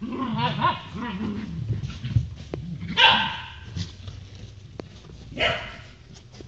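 Doodle dogs barking in play: after some mixed vocalising at the start, two loud, short barks come about three seconds and five and a half seconds in.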